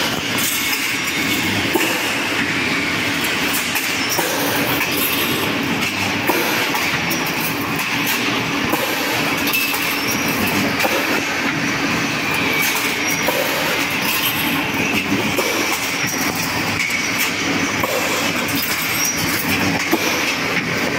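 Automatic welded-wire-mesh machine running: a steady, dense mechanical clatter with many sharp clicks.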